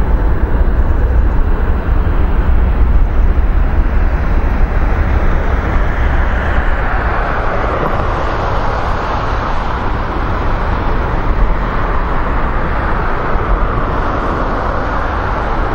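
Jet airliner engines, a loud steady rumble whose hissing upper part grows stronger about halfway through.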